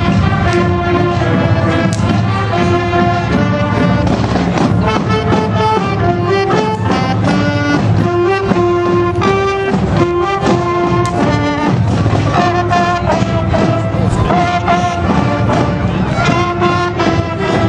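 Marching band playing a tune while marching, saxophones and brass instruments carrying the melody.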